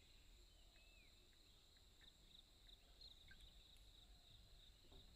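Faint forest ambience: a steady high-pitched insect drone, with a few brief bird chirps.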